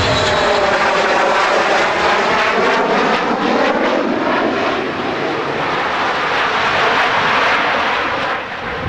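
Jet roar of a Sukhoi Su-27 fighter's twin Lyulka AL-31F turbofans as it flies past in a display pass. The roar is loud and steady, with a sweeping, phasing sound over the first few seconds, and eases slightly near the end.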